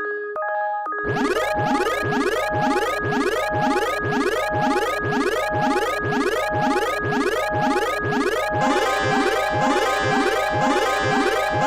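Cartoon railroad-crossing warning bell, an electronic alternating two-tone 'kan-kan' repeating steadily. From about a second in it is overlaid by rapid repeated rising pitch sweeps, and near the end more tones join and the sound grows denser.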